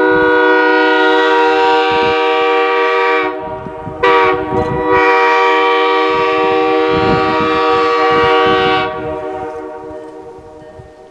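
Steam locomotive chime whistle blowing two long blasts with a short break between them, several notes sounding together, then fading away, with irregular low thumps underneath.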